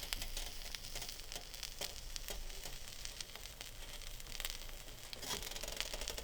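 A Reuben sandwich frying in butter in a pan: a steady sizzle with many small scattered pops and crackles as the rye bread toasts.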